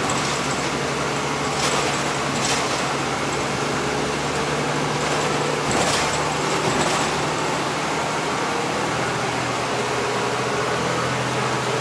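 City bus running, heard from inside the passenger cabin: a steady engine hum and road noise, with a few brief rattles. The engine note drops lower about two-thirds of the way through.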